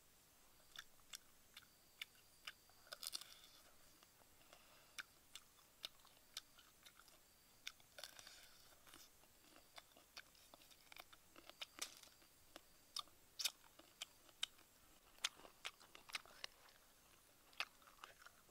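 Close crunching and chewing as a person bites into and eats crisp cooked insects: many sharp, irregular crunches with short bursts of chewing between them.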